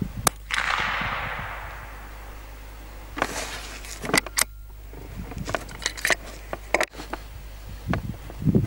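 A single shot from a Lithgow LA101 bolt-action .22LR rifle, with its report fading over about two seconds. Then a run of sharp metallic clicks as the bolt is worked.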